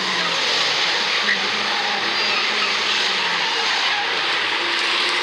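Banger race cars' engines running around the oval track, a steady loud din with no single engine standing out.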